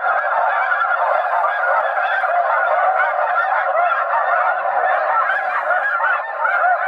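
Two electronic snow goose callers turned up loud, playing a dense, continuous chorus of overlapping snow goose calls.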